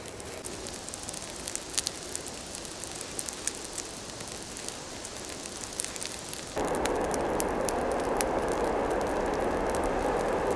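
Campfire of damp wood crackling, with scattered sharp pops over a soft hiss. About six and a half seconds in, a louder steady rushing noise sets in abruptly while the pops go on.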